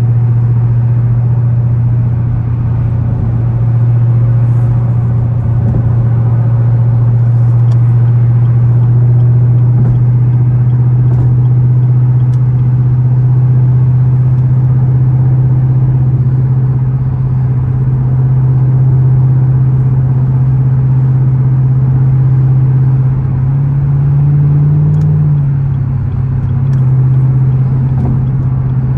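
A Nissan Z sports car's engine and exhaust droning steadily while driving, a loud deep steady tone. Near the end the pitch rises briefly with a short surge of revs, then settles back.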